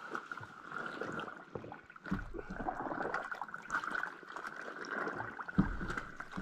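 Soaked canvas tarp being pushed and squeezed by gloved hands in a plastic tub of dye water: irregular sloshing and squelching of water.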